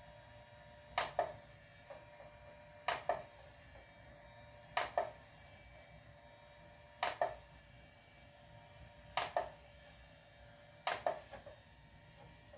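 HeySilkySkin IPL hair removal handset firing its light pulses against the skin: six sharp double clicks, about two seconds apart.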